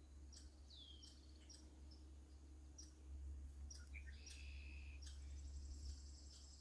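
Faint birdsong: scattered short high chirps and a falling whistled note, then a steady high trill that starts about five seconds in, over a low steady hum.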